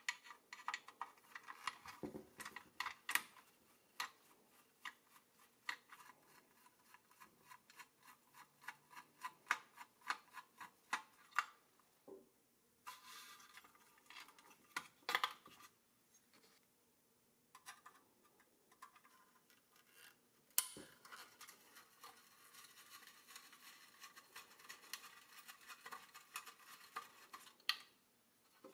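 Hand disassembly of a rusty vintage toy car chassis: a screwdriver and small steel parts click and scrape against the metal frame, and a corroded steel rod scrapes as it is worked out through its bracket. Many light irregular clicks, a single louder knock about two-thirds of the way through, then a longer stretch of scraping.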